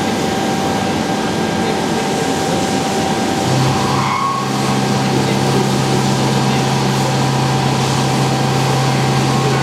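Leadwell V-60iT five-axis CNC machining centre running: a steady mechanical noise with a constant hum. About three and a half seconds in, a lower steady hum starts and holds.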